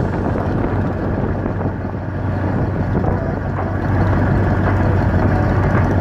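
A boat's engine running steadily under way, a constant low hum mixed with the rush of water and wind.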